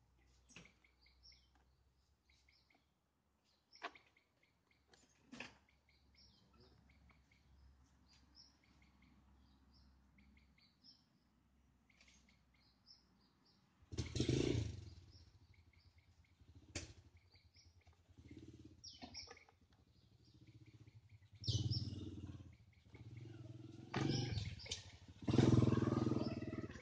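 Small birds chirping repeatedly in the background, with a few sharp clicks. In the second half come several loud, dull bursts of noise, each about a second long.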